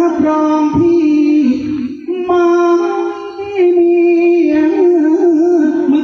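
Thai likay singing: a male performer sings a slow melodic line into a microphone, holding long notes with a wavering, ornamented pitch, with a brief break about two seconds in.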